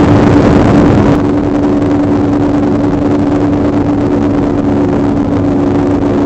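Performance powerboat's engines running steadily at speed: a constant drone under a rush of wind and water, which thins out about a second in.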